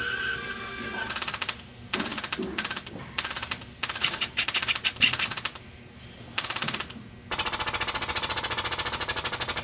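Siemens positioner on a high-pressure pneumatic valve actuator pulsing air to stroke a 3-way butterfly valve: several short trains of fast, even pulses, then continuous fast pulsing from about seven seconds in as the actuator moves.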